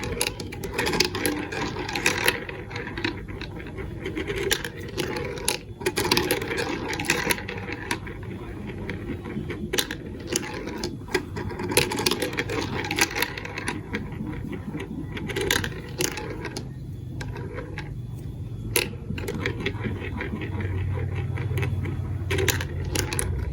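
Marbles rolling and clattering along a plastic building-block marble run, with many irregular clicks and knocks over a steady rolling rattle. A low hum comes in near the end.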